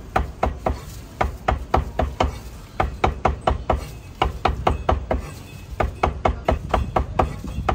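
Kitchen knife rapidly slicing braised pork intestines on a cutting board: a quick, even run of sharp knocks, about four strokes a second.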